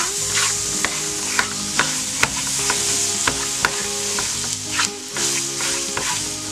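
Minced garlic, salt and colorau sizzling in hot oil in a frying pan while a silicone spatula stirs and scrapes it, with irregular sharp clicks of the spatula against the pan over a steady sizzle.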